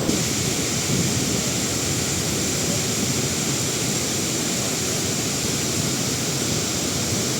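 Steady roar of Ban Gioc waterfall's falling water, an even rushing noise without change.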